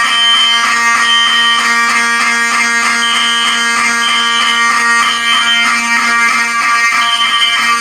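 Fire alarm system in alarm: horns sounding together, one a continuous buzzing horn, another a high tone pulsing three times about a second apart, then pausing (the temporal-three evacuation pattern).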